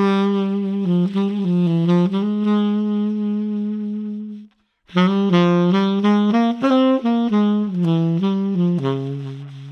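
Tenor saxophone on a Boston Sax Shop E-Series hard rubber mouthpiece playing a jazz line. A phrase of quick notes, a short breath about four and a half seconds in, then a second phrase that ends on a long low note fading away.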